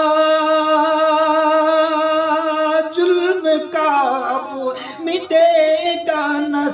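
Unaccompanied male voice singing an Urdu naat. He holds one long, steady note, then about three seconds in breaks into a run of wavering, ornamented notes.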